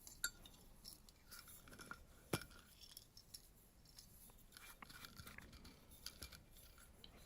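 Faint, scattered clicks and taps of small plastic and metal oil-can parts being handled, one sharper tap about two and a half seconds in; otherwise near silence.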